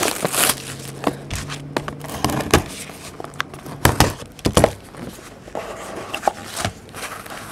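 Cellophane wrap being torn open by its tear strip and crinkled off a cardboard trading-card box, a run of crackles and sharp clicks, with a low steady hum through the first half.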